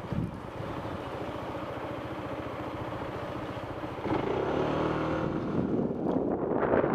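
Motorcycle engine running at low speed with a steady, rapid firing pulse; about four seconds in the engine note grows louder.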